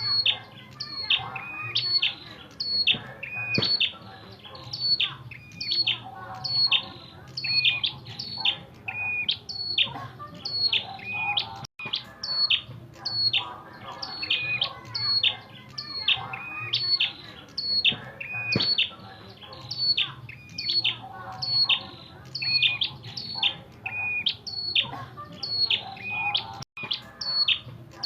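A prinia (sold as 'prenjak kepala merah') giving its fighting call: sharp, high chirps repeated in a fast, very regular series, about three every two seconds.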